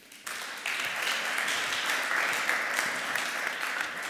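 An audience applauding. The clapping starts a moment in and holds steady.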